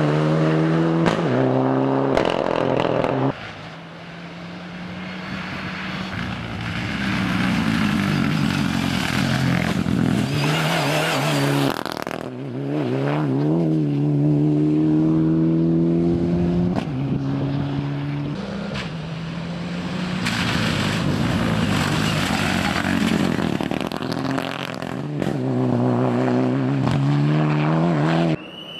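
Rally car, a Mitsubishi Lancer Evolution, its engine revving hard through the gears on a tarmac stage. The pitch climbs and drops with each gear change, over several short passes joined by abrupt cuts.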